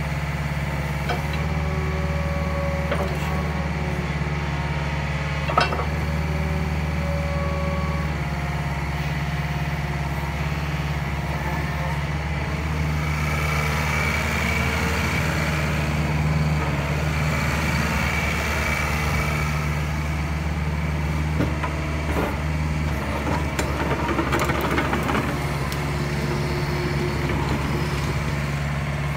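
Yanmar ViO50 mini excavator's four-cylinder diesel engine running steadily as the machine swings its upper body and moves on its tracks. A higher hydraulic whine comes in around the middle, and there are a few sharp metallic knocks.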